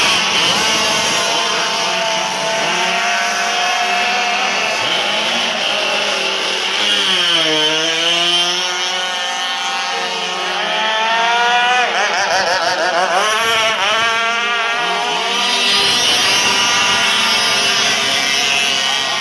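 Several radio-controlled racing powerboats running flat out, their high-pitched engine notes overlapping. The pitch dips and rises as boats pass, most clearly about a third of the way in and again just past halfway.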